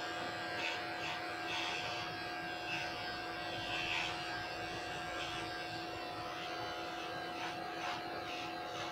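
Cordless electric pet clipper running with a steady hum while trimming the hair inside a dog's ear.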